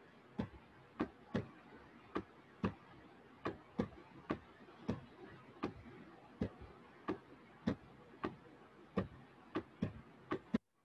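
Sharp clicks, about two a second at uneven spacing, from the pen input as a word is handwritten on a digital whiteboard, over a faint hiss. The sound cuts off suddenly near the end.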